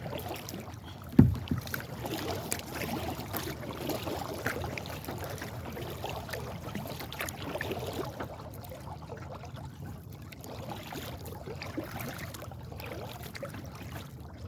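Kayak being paddled across water: paddle blades dipping and water washing along the hull, with one sharp knock about a second in.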